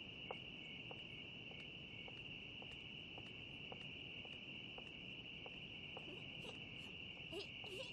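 Crickets chirring faintly in one steady, unbroken high trill, with a few faint scattered ticks.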